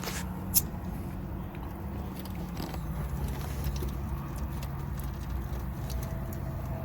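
Steady low machinery hum, with a sharp click about half a second in and a few light ticks.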